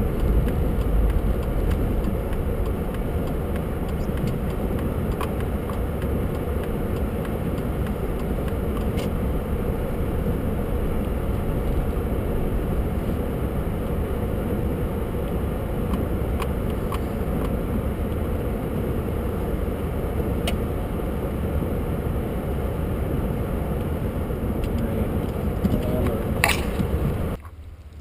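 Steady in-cabin noise of a car driving slowly on snowy streets: low engine and road rumble with a few faint clicks. It cuts off suddenly near the end.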